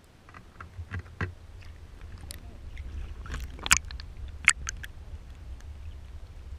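Water sloshing against a GoPro's waterproof housing as it is dipped under a river's surface beside a kayak. Scattered clicks and knocks, two sharp ones a little past the middle, sound over a steady low rumble.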